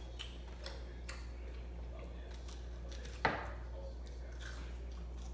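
Close-up eating sounds of a person chewing a sandwich: many small wet mouth clicks, with one louder sharp sound a little past three seconds in. A low steady hum lies underneath.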